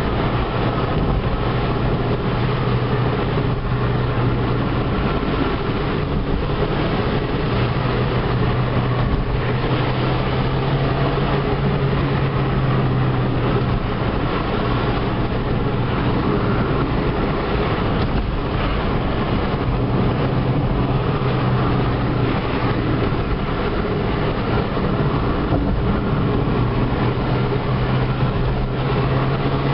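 Mk4 Ford Fiesta's 1.25-litre four-cylinder petrol engine running under way with steady tyre and road noise, heard from inside the cabin. The engine hum fades for a few seconds midway and climbs a little in pitch near the end.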